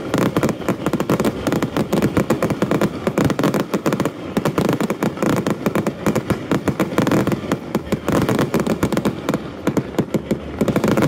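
Fireworks display: a dense, rapid run of crackling pops and bangs from aerial shells bursting overhead, many reports a second.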